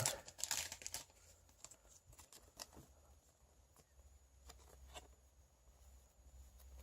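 Faint light clicks and rustles of trading cards being handled, a short cluster in the first second, then only scattered soft ticks.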